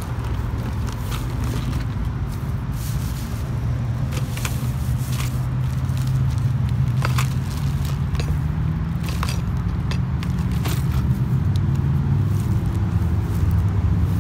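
Scattered clicks and rattles of lures and trays being rummaged through in a plastic tackle box, over a steady low rumble.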